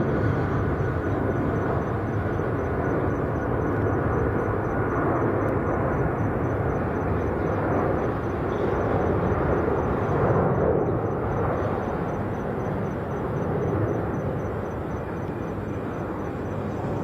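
Airliner jet engines rumbling, a steady noise that swells a little about ten seconds in, then slowly fades.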